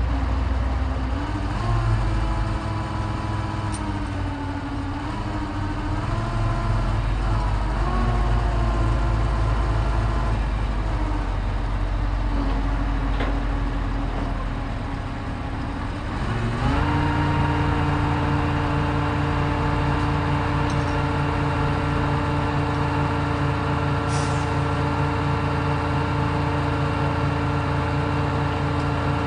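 Truck crane's engine running, its speed stepping up and down as the crane works. It then rises quickly and holds steady at a higher speed for the rest of the time. A single faint knock comes shortly before the rise.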